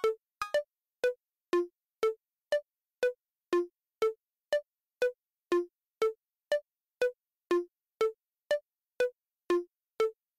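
Sparse electronic music: single short notes, about two a second, stepping between a few low pitches, with silence between each note.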